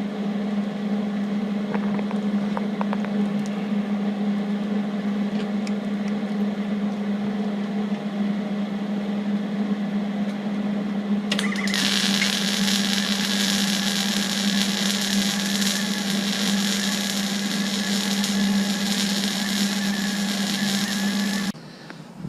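Welding on steel roof-rack legs: a steady machine hum, joined about halfway through by roughly ten seconds of loud, even hissing as an arc is held, both cutting off abruptly just before the end.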